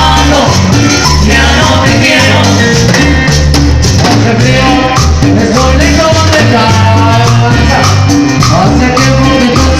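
Latin dance music played by a band: a steady, loud instrumental passage with a repeating bass line, melody instruments and shaken percussion.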